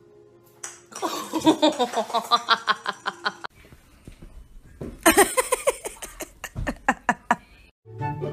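A baby giggling and laughing in two bouts of quick, repeated bursts, the first about a second in and the second about five seconds in.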